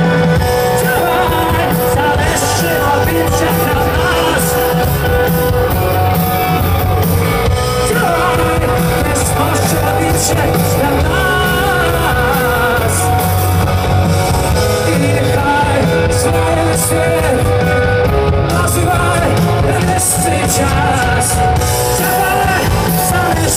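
Live rock band playing loudly, heard from among the audience, with singing over held instrument notes and drums.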